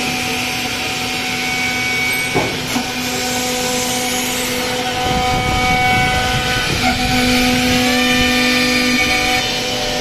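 Wood-door CNC router running: a steady machine din with several held whining tones, two short knocks about two and a half seconds in, and the noise growing louder and rougher from about five seconds in.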